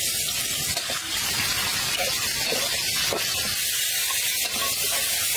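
Chopped onion frying in hot oil in an iron wok over a wood fire: a steady sizzling hiss, with garlic paste added and stirred in with a metal spatula near the end.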